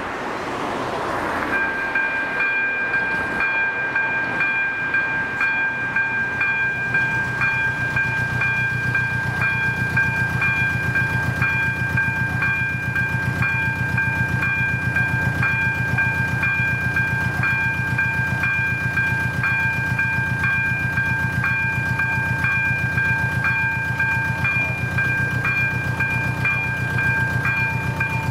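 Level-crossing warning bell (AŽD ZV-02 electronic bell) starts about a second and a half in and rings on steadily: a ringing of several fixed pitches with a fast, even beat. It signals that a train is approaching and the crossing is closing. Before it, a car passes.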